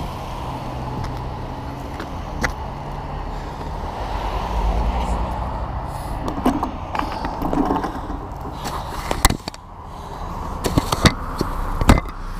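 Road traffic going past: a steady rumble of tyres and engines that swells and fades as cars pass, with several sharp knocks and clicks over it.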